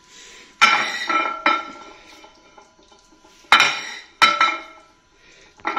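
Utensils clinking against cookware and dishes while food is dished out: four sharp clinks with a short ring, the first about half a second in, the last about four seconds in.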